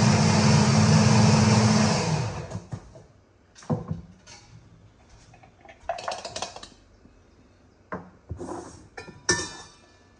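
Electric kitchen blender motor running at full speed on a batch of broccoli, then switched off about two seconds in and winding down. Scattered light clicks and knocks follow as the bowl and its contents are handled.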